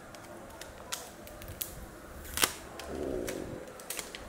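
Clear protective plastic film being peeled off a Hollyland Lark M2 charging case, with handling of the plastic case: scattered small clicks and crackles, one sharper click about two and a half seconds in.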